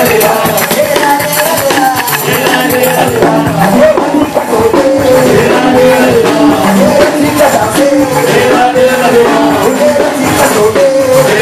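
Live Mahoran mbiwi dance music: a group of women's voices singing over steady, sharp clicking percussion.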